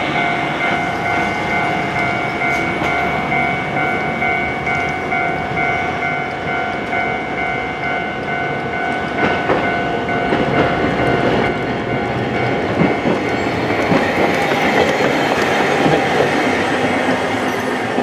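Level-crossing warning bell ringing steadily at a Japanese tram crossing, with a Hankai Tramway streetcar approaching; the tram's wheels and running gear on the rails grow louder through the second half as it nears the crossing.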